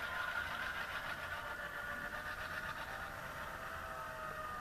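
Diesel locomotive engine sound from a Soundtraxx Tsunami sound decoder in an HO scale CF7 model, played through the model's small speaker as the locomotive runs along the track.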